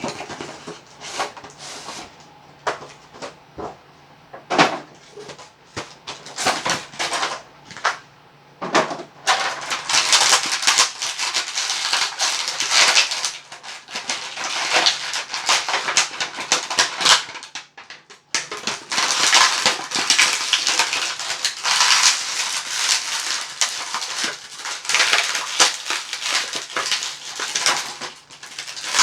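Plastic and cardboard packaging being handled as a boxed figure is unpacked: scattered clicks and taps at first, then from about nine seconds in a steady crinkling of plastic, broken by a brief pause a little past halfway.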